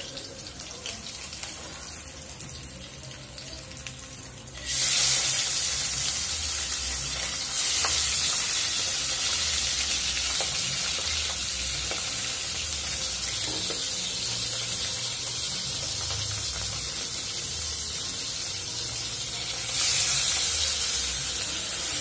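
Fish sizzling as it fries in hot oil in a wok. The hiss jumps suddenly louder and brighter about five seconds in, and rises again near the end.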